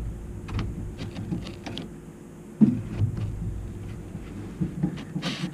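Light clicks and knocks of tools and metal parts being handled on a boat floor, with one sharper thump about two and a half seconds in, over a low rumble.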